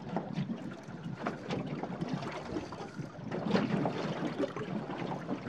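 Small waves lapping and slapping irregularly against the hull of a small boat on choppy water, with wind buffeting the microphone.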